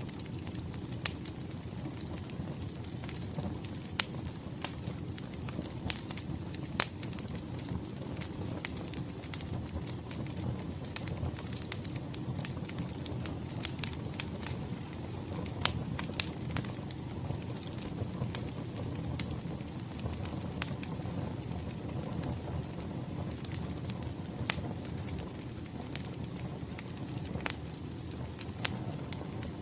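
Wood fire crackling: irregular sharp pops and snaps, a few much louder than the rest, over a steady low rumble of the burning logs.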